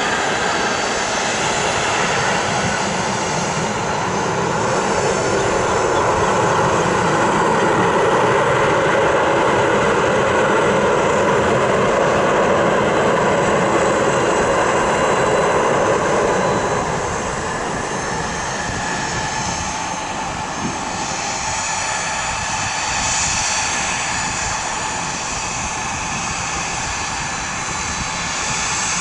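Gulfstream G200 business jet's twin turbofans in reverse thrust on the landing rollout, a loud steady rush. About seventeen seconds in it spools down to the quieter sound of the engines idling as the jet slows to taxi speed.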